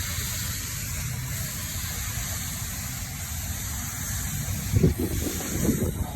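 Water spraying onto an air-conditioning unit to clean it: a steady hiss over a low rumble, with a few low thumps near the end.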